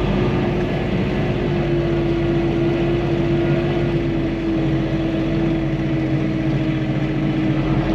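Farm tractor engine running steadily at a constant speed, with a steady whine that holds one pitch from about a second and a half in.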